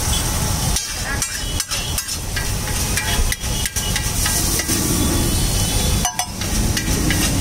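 Metal spatula clanking and scraping against a large flat griddle (tawa), with many irregular sharp metal taps, while egg mixture sizzles on the hot plate.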